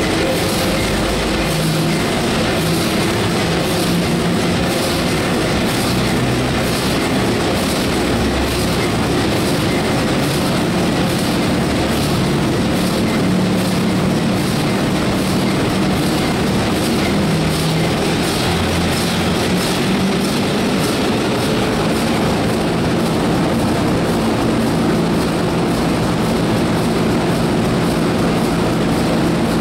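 A 1932 Burmeister & Wain eight-cylinder double-acting two-stroke diesel engine running steadily. It gives a loud, even mechanical clatter over a steady low hum.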